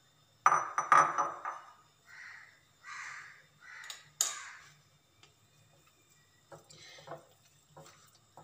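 Metal potato masher clattering and knocking against a glass bowl of boiled potatoes, with a loud clatter about half a second in and a sharp click about four seconds in. Three short harsh noises come about a second apart in between.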